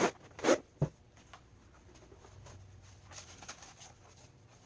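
Sheet material being handled: three quick ripping, rasping sounds within the first second, the middle one the loudest, then soft rustling.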